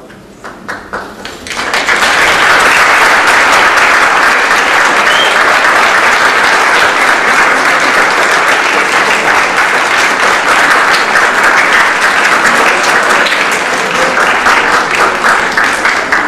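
Audience applause at a curtain call: a few scattered claps at first, then from about two seconds in the whole audience clapping, loud and steady.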